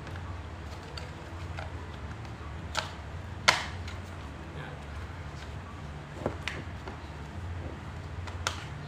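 Plastic parts of a Hanabishi electric kettle's power base being fitted back together by hand: a few sharp clicks and knocks, the loudest about three and a half seconds in, over a steady low hum.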